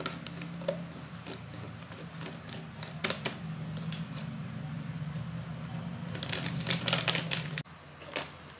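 Scissors cutting open a Royal Canin dry cat food bag, then the bag crinkling as it is pulled open: scattered sharp clicks, with a dense run of them about six to seven and a half seconds in.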